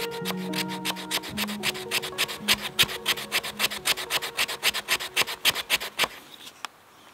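A knife blade scraping a resin-rich fatwood stick in quick, even strokes, about six a second, shaving off fine tinder dust; the scraping stops about a second before the end. Soft background music fades out during the first half.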